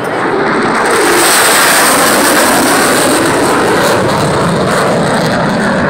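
Thunderbirds F-16 fighter jet making a low pass. Its jet noise swells sharply about a second in, with a strong hiss, then slowly eases off.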